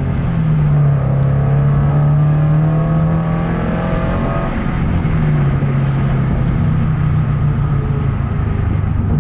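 Exhaust drone of a 2022 Toyota GR86's 2.4-litre flat-four through an aftermarket JDL header and exhaust, heard from inside the cabin with the windows down while driving. The pitch shifts down and up a few times as the revs change.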